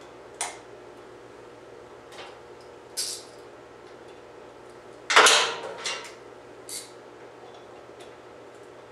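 Scattered light metal clicks and clinks of small screws, billet breather parts and a hand tool being handled as the breather hardware is set in place. The loudest knock comes about five seconds in, followed by a few quicker clicks.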